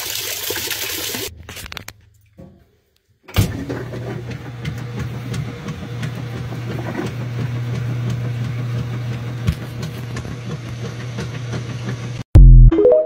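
Top-loading washing machine filling: water splashing into the drum, then after a short gap a steady hum with a muffled rush of water once the lid is shut. A brief, very loud low sound right at the end.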